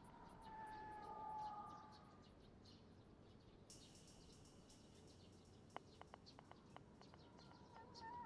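Faint outdoor ambience with short high bird chirps. A wavering tone, like a distant siren, fades out in the first two seconds. A steady hiss sets in about four seconds in, and a few sharp clicks follow.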